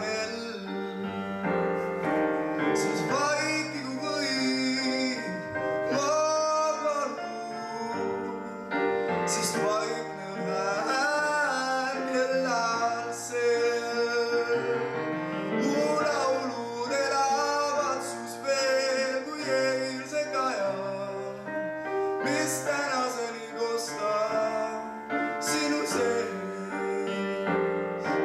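A young man singing a song solo into a microphone, accompanied by piano.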